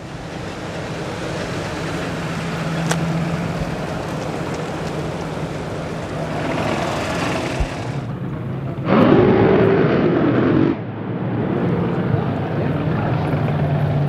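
Engines running across several cut-together clips: a steady engine drone, then about nine seconds in a louder racing engine whose pitch rises and falls, cut off abruptly about two seconds later before the steady drone returns.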